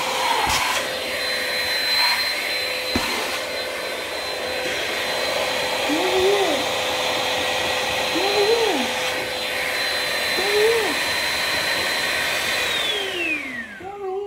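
Handheld vacuum running steadily with a high motor whine as it vacuums a long-haired cat's fur. Near the end it is switched off and the motor winds down, its pitch falling away.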